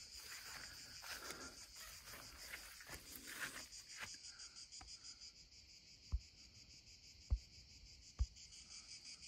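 Steady high-pitched insect chorus with a fast, even pulse, over footsteps swishing through dry grass during the first few seconds. Three dull thumps in the second half.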